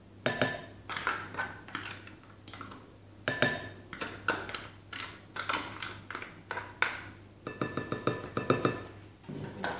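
Spoon scraping and clinking against the inside of a glass jar of chocolate spread as it is scooped out, a series of scrapes and short ringing clinks. Near the end comes a quick run of taps.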